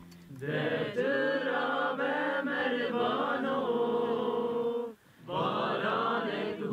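A group of voices singing a song together without instruments, with one short pause about five seconds in before the singing resumes.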